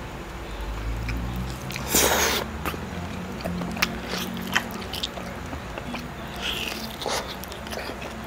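Close-miked biting and chewing of grilled marinated lamb: wet smacking and clicking as meat is torn from the bone and chewed, with a louder bite about two seconds in and a smaller one near the end.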